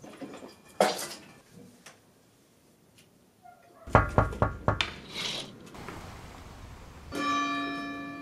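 A sharp knock, then a quick cluster of knocks and clatter, then a sustained musical note begins near the end and holds.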